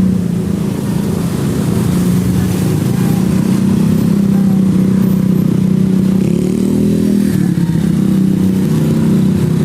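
Engine of a passing bus running close by, steady, with its pitch rising briefly about seven seconds in. The sound cuts off suddenly at the end.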